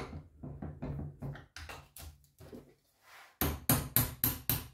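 Soft irregular knocks as a stack of sandpaper sheets is handled and set into a steel bench vise, then near the end a small hammer taps on the stack in quick even strikes, about four a second.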